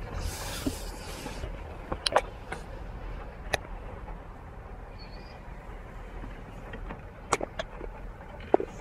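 Steady low hum of a car running, with a brief hiss in the first second and a few scattered sharp clicks and taps.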